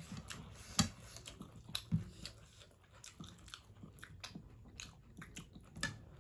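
Close-up chewing and biting of food, with irregular short clicks and crunches. The loudest come about a second in and again about two seconds in.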